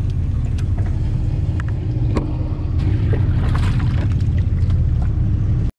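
Sportfishing boat's engine running with a steady low rumble, over small splashes and ticks of water and a dip net working in the live bait tank. The sound cuts off abruptly near the end.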